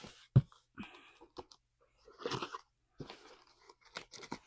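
A paring knife cutting packing tape and cardboard on a shipping box: a sharp knock about half a second in, then short scraping cuts and clicks.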